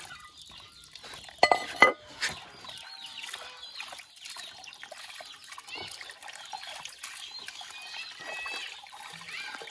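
Water splashing and trickling as frogs are scrubbed by hand in a plastic basin of water under a thin running stream. Short high chirping calls come and go throughout, with a loud call about one and a half seconds in.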